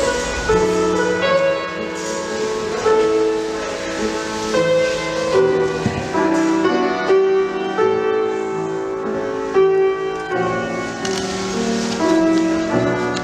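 Piano music in a classical style, playing steady chords and melody: the kind of accompaniment played for ballet exercises at the barre.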